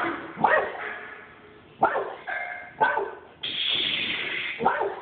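Dogs barking: four single, separate barks spread over a few seconds. Between the third and fourth bark there is a steady hiss-like noise lasting about a second.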